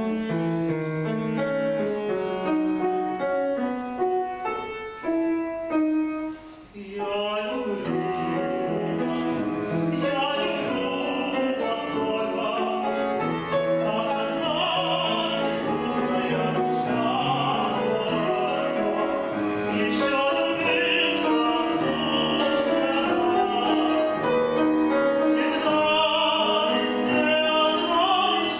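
A piano plays alone, then about seven seconds in a male classical singer comes in with full operatic voice and vibrato, and the piano accompanies him.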